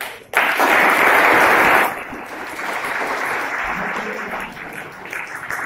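A room full of girls applauding. The clapping starts suddenly and is loudest for about the first second and a half, then carries on more softly.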